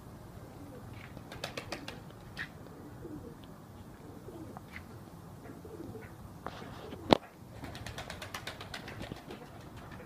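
A flock of domestic fancy pigeons cooing softly while feeding, with quick runs of sharp taps as beaks peck grain from concrete. One louder click comes about seven seconds in.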